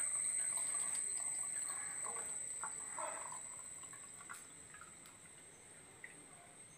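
Water poured from a steel tumbler into a hollowed-out glass light bulb, trickling and dripping, growing fainter after the first few seconds. A steady high-pitched whine sits in the background.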